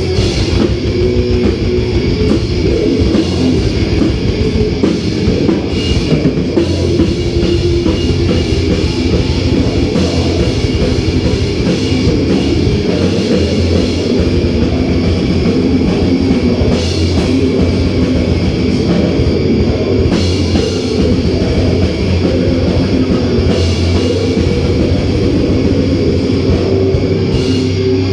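Heavy metal band playing live: distorted electric guitars and bass over fast, dense drum-kit hits, loud and continuous.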